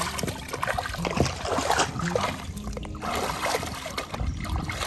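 Water splashing and sloshing in irregular bursts as corn cobs and vegetables are rinsed in a plastic basket dipped into a shallow river.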